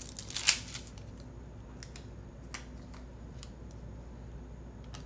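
Sticker sheets and planner paper being handled: a short papery rustle about half a second in, then a few light clicks and taps.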